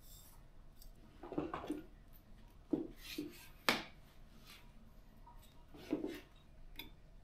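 Light knocks and clatters of objects being handled at a table, with a camera tripod being moved and set up. There are about five knocks, the sharpest a little past the middle.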